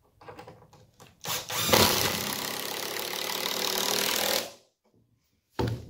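DeWalt cordless impact driver running for about three seconds as it drives a screw to fasten a runner board to a cedar slab, starting a little over a second in and stopping abruptly. A few light handling knocks come before it.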